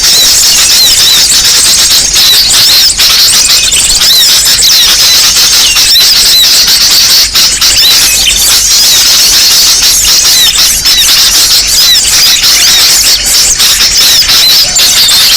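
Dense, loud chorus of many small birds chirping and twittering at once, with rapid high chirps overlapping without pause. It is a bird-lure (pikat) recording of noisy small birds, played to call small birds in for trapping.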